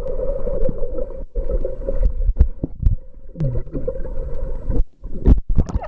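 Muffled underwater pool noise recorded by a submerged waterproof camcorder: rumbling and gurgling water with many short knocks and clicks as swimmers move.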